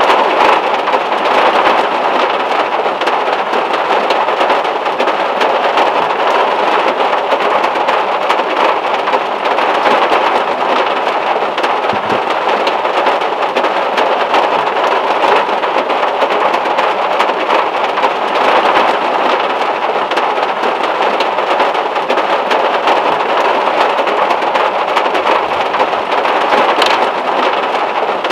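Heavy rain hitting the metal roof and windows of a VW Beetle, heard from inside the car: a dense, steady patter with no letup.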